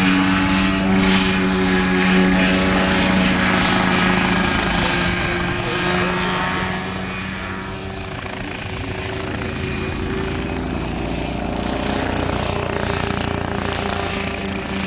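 Nolan coaxial pendulum helicopter in low flight, its engine and stacked rotors making a steady hum. The hum fades about halfway through as the helicopter moves away, then grows louder again as it comes back.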